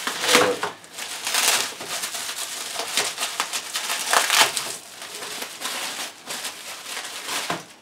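Bubble-wrap bag crinkling and crackling as hands pull and fold it open, in irregular bursts with a few louder crackles, growing softer over the last few seconds.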